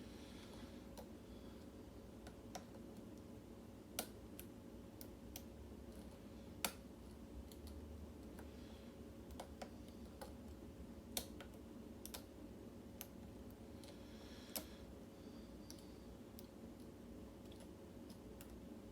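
Lock pick working the pins of a mortise pin-tumbler cylinder: sparse, irregular sharp clicks a second or a few seconds apart, the loudest about seven seconds in, over a faint steady hum.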